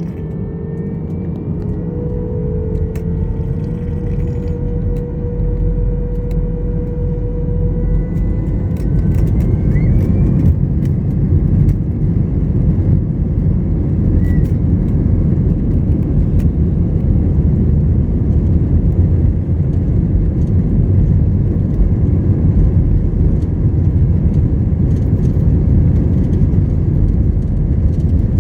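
Airbus A321's CFM56 jet engines and airframe heard from inside the cabin: the engine note builds steadily over about ten seconds, then settles into a loud, even rumble with a few light rattles, typical of engines spooling up to takeoff thrust and the takeoff roll.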